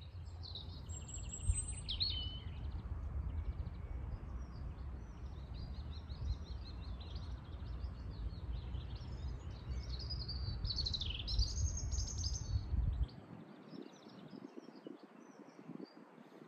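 Several songbirds chirping and singing in short trills over a loud low rumble, which cuts off suddenly about thirteen seconds in.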